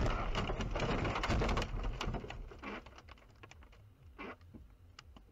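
A car crashing off the road into trees: a loud crash noise over the first second and a half or so, then scattered clicks and knocks of debris settling, fading away.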